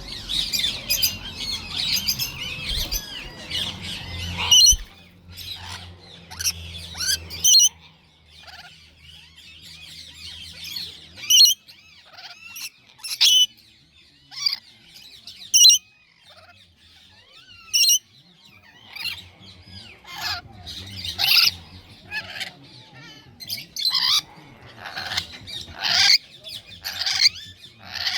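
Lorikeets screeching and chattering: a dense run of shrill chatter over a low hum for the first few seconds, then single sharp shrieks every couple of seconds, crowding closer together near the end.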